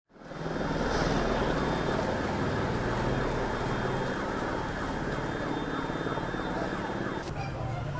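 Muddy floodwater rushing down a street in a dense, steady rush, with splashing from people wading through it. A steady low hum runs underneath, and the sound shifts abruptly near the end.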